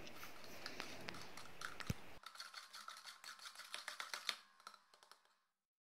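Metal spoon stirring a runny cocoa, sugar, milk and oil mixture in a plastic jug: faint, irregular scraping and light clicks against the jug. The sound thins out after about two seconds and cuts to silence near the end.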